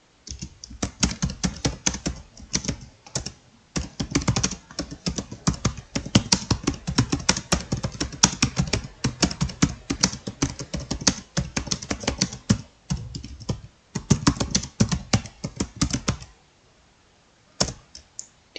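Fast, continuous typing on a computer keyboard: rapid runs of key clicks with short pauses, stopping about sixteen seconds in, then a couple of single keystrokes near the end.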